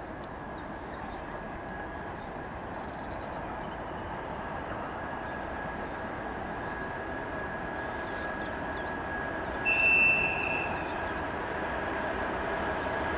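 2M62UM twin-section diesel locomotive with loaded coal gondolas approaching from a distance, a steady rumble slowly growing louder with a thin high tone held throughout. About ten seconds in comes a short, high, steady whistle blast lasting about a second.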